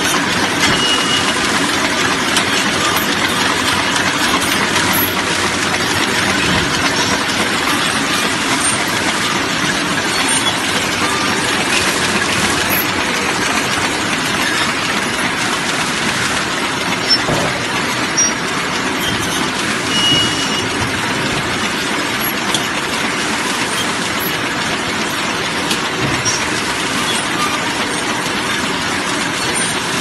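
JDZ-120P automatic bottle cartoning machine running continuously, a steady dense mechanical noise, with a brief high squeak about a second in and again around twenty seconds.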